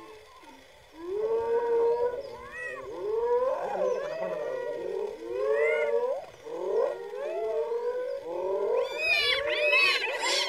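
Spotted hyenas calling excitedly: many overlapping rising-and-falling whoops and squealing yelps, starting about a second in, with a denser flurry of higher-pitched calls near the end.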